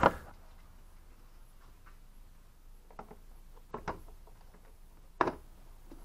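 A few light clicks and knocks from parts being handled in a pickup's engine bay, spaced apart, the loudest about five seconds in.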